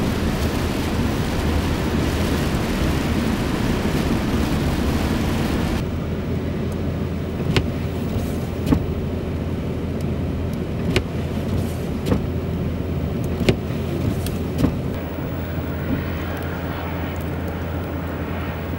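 Road vehicles on a wet, slushy highway: a steady low engine rumble under a dense tyre hiss for about the first six seconds. The hiss then stops abruptly, the rumble continues, and there are about half a dozen scattered sharp taps.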